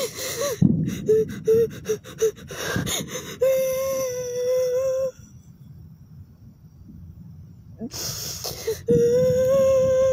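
A woman crying hard: a run of sharp gasping breaths, then two long, held wailing sobs, the second beginning about nine seconds in.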